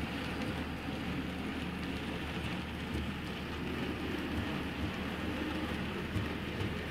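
Model goods train rolling along the layout track: a steady rumble and rattle of small wagon wheels on the rails, over a low hum.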